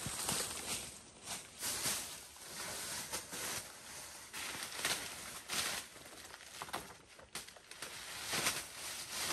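Leaves and forest undergrowth rustling and crackling as a person pushes through the brush and handles foliage, in irregular short bursts with a few louder crackles.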